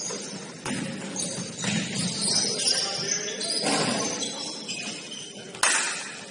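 Basketball sneakers squeaking in short, high-pitched squeals on a hardwood gym floor during play, with a few sharp thuds in between, about a second or two apart.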